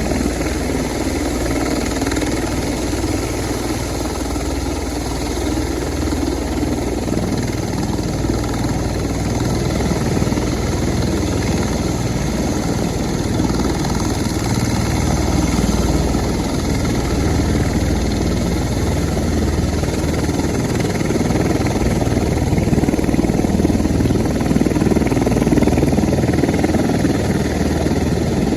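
CV-22 Osprey tiltrotor's twin turboshaft engines and proprotors running as it taxis, a steady heavy drone that grows a little louder near the end.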